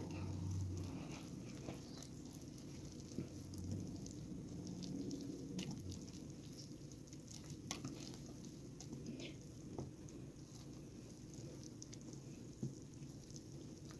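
Wire whisk stirring thick banana bread batter in a glass bowl: faint wet patter and squish, with a few light ticks scattered through.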